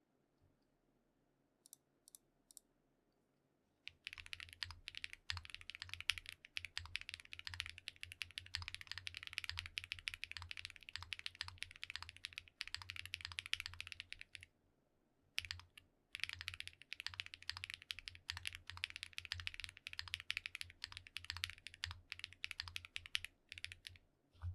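Odin V2 custom mechanical keyboard being typed on: a few lone keystrokes, then a fast run of key clicks lasting about ten seconds, a short pause, and a second long run, ending on a single keystroke.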